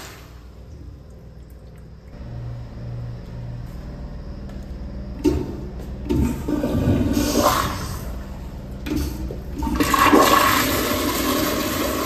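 American Standard Madera flushometer toilets flushing: one flush cuts off right at the start, a couple of sharp knocks follow about five and six seconds in, and a loud rush of flush water begins about ten seconds in as the next toilet flushes.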